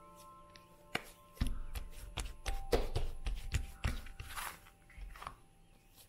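Pretzel dough being kneaded and pressed down on a silicone baking mat: a run of soft, low thuds and knocks lasting about three seconds, starting a little over a second in. Gentle background music with sparse bell-like notes plays underneath.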